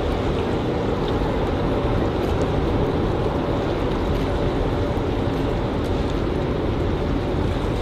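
Steady low rumble of a boat's engine mixed with wind and water noise, with a faint even hum running through it.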